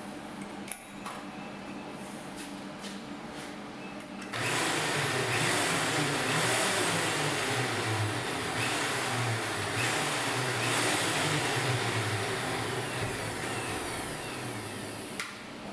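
Eastwood Elite 60 plasma cutter on a CNC table: a steady hum, then about four seconds in the arc fires and a loud, harsh hiss of the plasma cutting through Hardox steel plate runs for about ten seconds before tapering off and stopping near the end.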